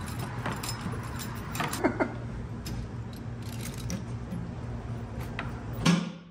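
Light metallic clinks and taps from hands and tools on a bare steel motorcycle frame, over a steady low shop hum, with a louder thump near the end.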